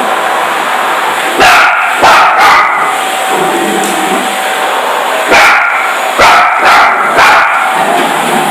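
Parson Russell Terrier barking at a running vacuum cleaner: two barks about a second and a half in, then a run of four barks from about five seconds in, over the vacuum motor's steady hum.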